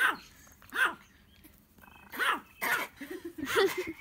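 Small terrier barking in play: a run of short, high yaps, about six in all, with a pause of about a second near the start of the run and a quick cluster near the end.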